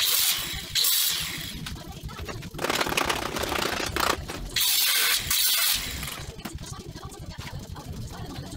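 Angle grinder biting into the rusty steel of a 1954 VW bus's front frame in four bursts of harsh grinding over the first six seconds, the longest about a second and a half; after that only the lower running noise is left.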